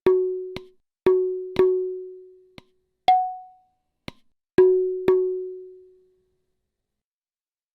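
Sampled pitched hand percussion from the SwarPlug 4 Indian-instrument plugin, played as single strikes: about eight hits, most ringing briefly on the same note. One higher-pitched hit comes about three seconds in, and a couple of faint taps fall between them. The strikes stop about six seconds in.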